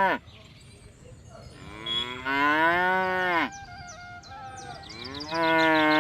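Buffalo lowing: long, loud moos, each rising and then falling in pitch. One comes in the middle and another starts near the end, after the tail of an earlier call at the very start.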